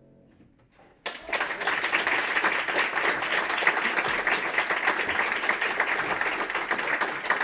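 The last chord of an upright piano fades out, then about a second in an audience breaks into applause that carries on steadily.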